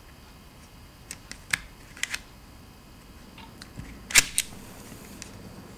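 EME279TD laptop floppy drive being ejected by hand: several small mechanical clicks, then a louder snap about four seconds in as the eject mechanism releases the disk.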